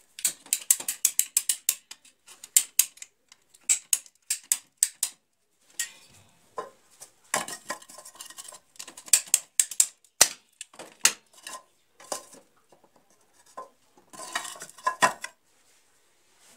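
Runs of rapid, sharp ratchet clicks from hand pipe-cutting shears closing on a polypropylene water pipe, in several bursts with short pauses between.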